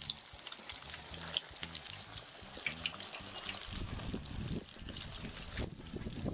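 Battered chicken thighs deep-frying in oil at 380 degrees in a cast iron fryer: a dense, steady sizzle with many small crackles and pops, right after the pieces go into the oil.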